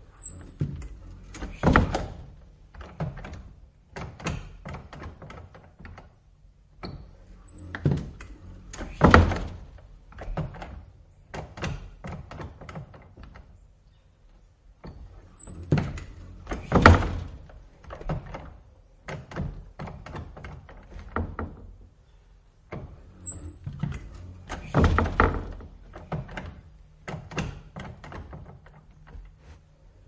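Wooden screen door on a metal spring hinge opened and let snap shut four times, about every seven to eight seconds. Each cycle starts with a brief high squeak, then a loud wooden slam and a quick run of smaller rattling knocks.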